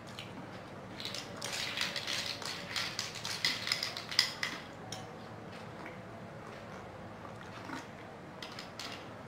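Metal spoons clinking and scraping against ceramic bowls during a meal, a busy run of clinks for a few seconds then only a few scattered ones.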